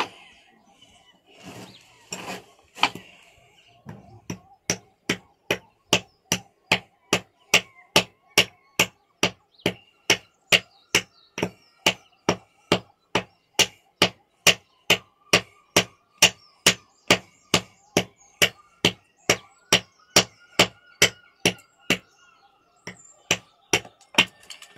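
Hammer striking a hard fossil-bearing stone over and over, a steady run of sharp knocks at about two and a half blows a second, after a few scattered knocks at the start. The stone is hard and does not split under the blows.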